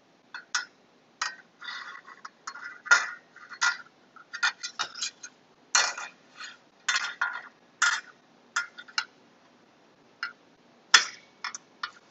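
Front pointer accessory being fitted into the accessory mount on the head of a Varian TrueBeam linear accelerator: a string of irregular clicks, clinks and short scrapes. They are busiest over the first eight seconds and sparser afterwards, with a sharp knock near the end as it is seated.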